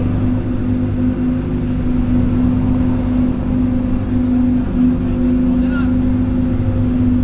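Supercar engines idling together, a steady low drone with a strong even hum.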